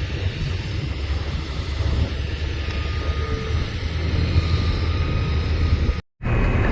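Diesel engines of earthmoving machinery, an excavator and dump trucks, running steadily with a low rumble. The sound drops out abruptly for a moment near the end, then comes back slightly louder.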